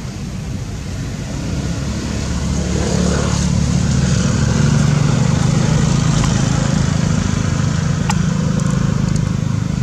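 A motor vehicle engine runs nearby as a steady low hum. It grows louder over the first few seconds and eases off toward the end. There is a single sharp click about eight seconds in.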